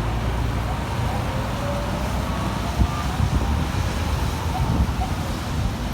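Steady low rumble of vehicles and street traffic, with wind buffeting the microphone and a few brief knocks.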